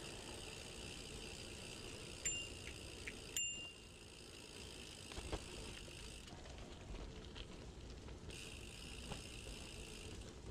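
Gravel bike rolling on a gravel track with low tyre rumble, and the rear hub's freewheel buzzing while coasting. The buzz stops about six seconds in and starts again near the end. Two short metallic pings come a little after two and three seconds in.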